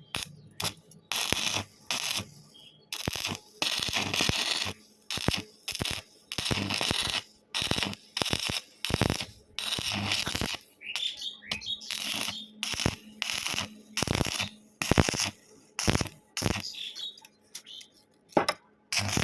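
Electric arc welding on angle iron in short stop-start bursts, the arc crackling and hissing for a fraction of a second to about a second at a time, roughly once a second, over a faint steady hum.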